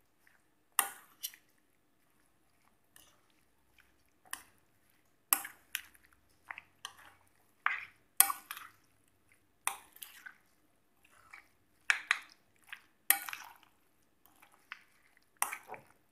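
Raw chicken pieces being squeezed and turned by hand in a wet, sticky marinade in a glass bowl: short irregular squelches about every second or so.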